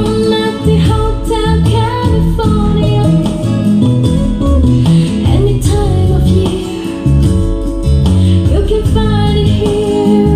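Music playing loudly: a song with a singing voice over accompaniment with strong bass.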